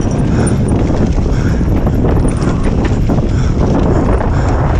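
Downhill mountain bike ridden fast over a rough dirt trail: loud wind rumble on the microphone with the tyres and the bike's chain and frame clattering rapidly and irregularly over the bumps.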